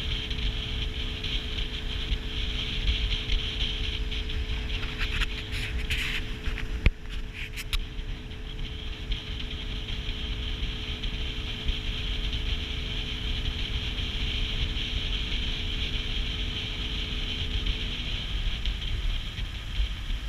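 Outboard motor idling with a steady hum over a low rumble and a steady hiss; its pitch sags and the hum fades about eighteen seconds in. A single sharp knock about seven seconds in.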